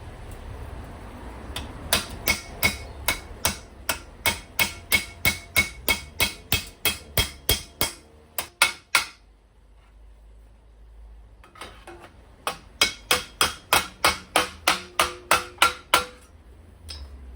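Hammer striking a steel sill repair panel to knock its trimmed edge over. The blows come in two steady runs of about three a second, each with a short metallic ring, with a pause of a couple of seconds between the runs.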